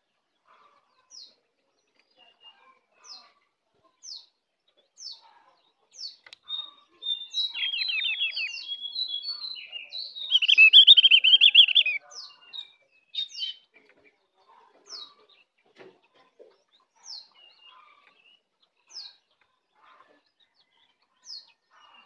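Opior Bali songbird calling with short, high, falling notes about once a second. Midway it breaks into a loud, rapid, trilling warble for about five seconds, loudest near its end, then goes back to the single call notes.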